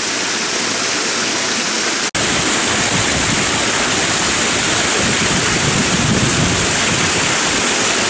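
Fountain water falling in thin streams over a basin's rim and splashing steadily into the pool below. The sound breaks off for an instant about two seconds in.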